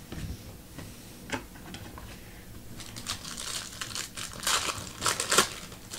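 Crinkling and rustling of a foil trading-card pack wrapper, with scattered light clicks and taps of cards being handled; the rustling is busiest in the second half.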